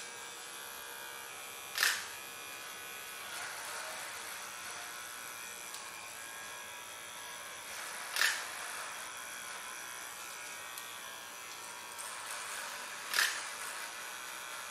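Cordless electric hair clipper running steadily, its blades buzzing as it shaves the short hair at the nape of the neck. Three short, louder sounds come about five seconds apart.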